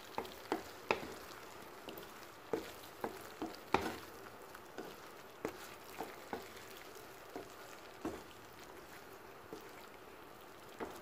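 Wooden spatula stirring chicken wings and fried potato cubes through chili sauce in a frying pan: irregular knocks and scrapes against the pan over a steady low sizzle.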